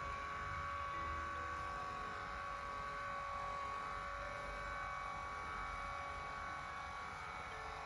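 The electric motor and gearbox of a Lourdes AX-HL168 massage cushion running with a steady whine and hum over a low rumble.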